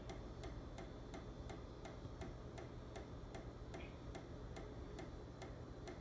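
Steady, evenly spaced ticking at about four ticks a second that sounds like water dripping, coming from the ceiling: thermal expansion of the ductwork or piping as it heats, which the home inspector takes for the cause rather than a leak.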